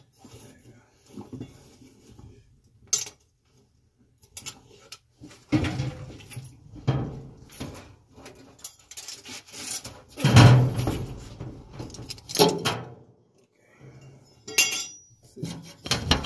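Metal tools and dryer parts clinking and clattering as they are handled, a run of irregular knocks with the loudest a little past the middle.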